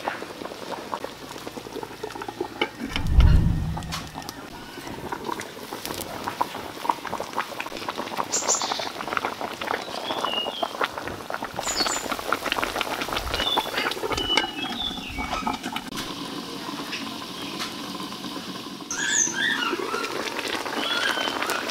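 Spiced broth simmering in a wok over a wood fire: a steady patter of small pops and crackles. Short high chirps come and go from the middle on, and there is one dull thump about three seconds in.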